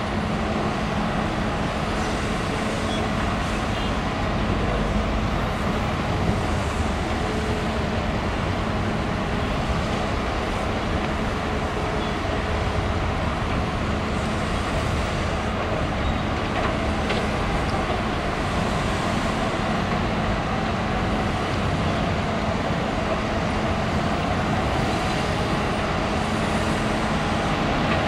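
Diesel engines of a Mitrador (Shantui) crawler excavator and dump trucks running steadily at work, with a constant low hum under the machinery noise.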